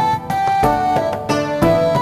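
Background instrumental music: plucked-string melody of held notes that change every fraction of a second.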